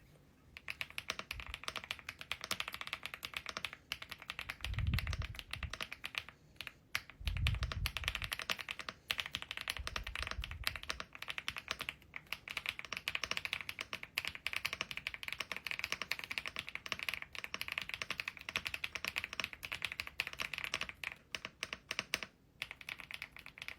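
Fast continuous typing on an Elec Fox Inky75 mechanical keyboard, a dense stream of key clicks starting about half a second in, with a few short pauses. A few deeper thuds come through around five to ten seconds in.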